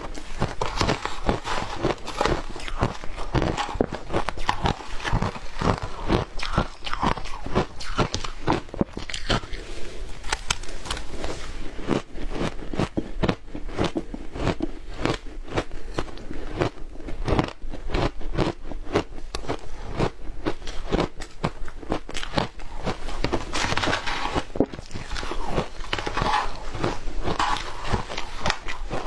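Frozen shaved ice being bitten and chewed: a dense, continuous stream of sharp crunches and crackles.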